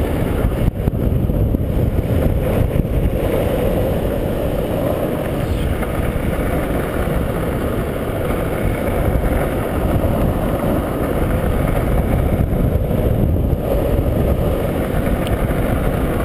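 Steady rumble of longboard wheels rolling fast on asphalt, mixed with wind against a helmet-mounted camera during a downhill run.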